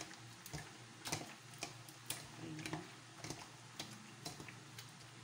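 A hand squeezing and turning thin slices of beef in a wet egg-and-spice marinade in a bowl: sharp wet squelching clicks about twice a second, unevenly spaced, over a faint low hum.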